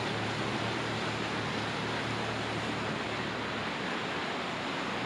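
Whitewater of a Colorado River rapid rushing and churning around an inflatable raft, a steady, dense water noise. A faint low hum underneath fades out a little over halfway through.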